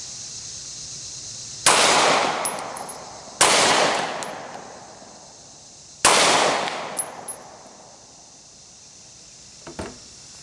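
Glock 43 single-stack 9mm pistol firing three shots, the first two about 1.7 seconds apart and the third about 2.7 seconds later, each echoing and fading over a couple of seconds. Light metallic ticks follow the first two shots, and there are a couple of soft knocks near the end. The pistol is feeding a mixed magazine of hollow-point and full-metal-jacket rounds and fires every round without a stoppage.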